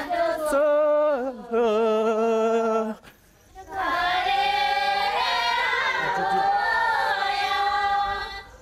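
Tu folk song of the Anzhao circle dance, sung unaccompanied. One voice sings the first phrases. After a short break about three seconds in, a group of voices sings a long line together.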